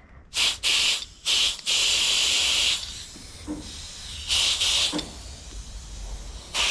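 Compressed air hissing in several short bursts and one longer blast of about a second, as air is fed into a bicycle inner tube through its Schrader valve stem.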